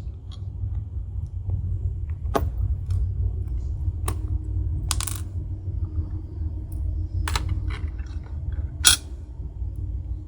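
Sharp metallic clicks and clinks of small steel parts as an Abus 83/45 padlock is taken apart with tools, its C-clip being worked off; about five separate clicks, the loudest near the end.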